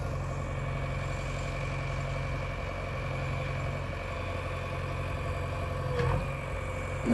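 JCB backhoe loader's diesel engine running steadily while it works its backhoe arm over a tipper truck. About six seconds in there is a brief sound falling in pitch, and a louder one of the same kind right at the end.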